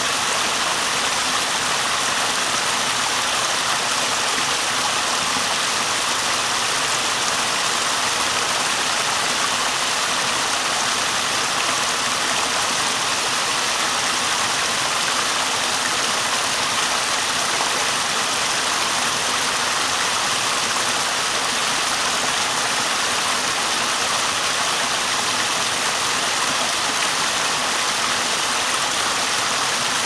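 Small rocky stream running over a little cascade: a steady, even rush and splash of water that does not change.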